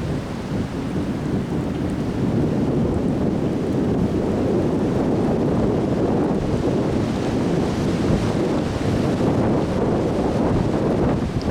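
Strong wind in a windstorm, buffeting the microphone: a dense, low rushing noise that builds over the first couple of seconds, then stays steady and loud.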